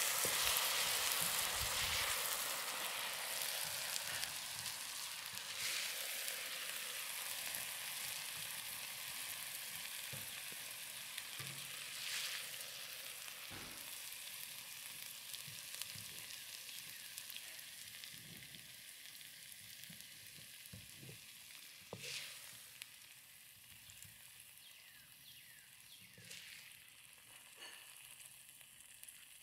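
Sauce and salmon sizzling in an electric wok, the sizzle slowly dying away with the heat switched off. A few short taps and scrapes of a nylon spatula against the wok and plate.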